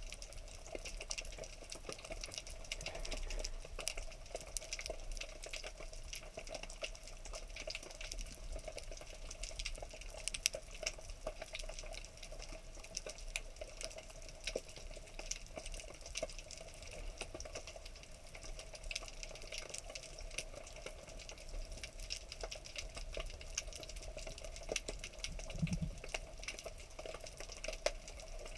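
Underwater ambience heard through an action camera's housing: a steady hiss with a dense, fine crackle of tiny clicks. A brief low hum sounds about 26 seconds in.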